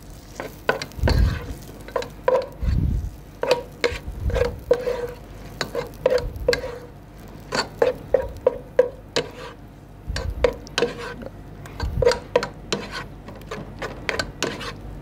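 Spoon beating butter into mashed potato in a saucepan: quick, irregular scraping and knocking of the spoon against the pan, about two strokes a second, with a few duller thumps.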